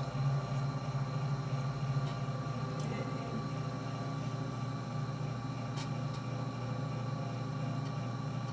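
Electric pottery wheel motor humming steadily as the wheelhead spins, with wet clay being thrown into a cylinder.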